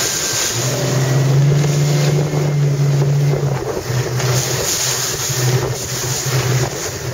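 Motorboat outboard engine running with a steady low hum that wavers and breaks up from about four seconds in, under heavy wind on the microphone and rushing water.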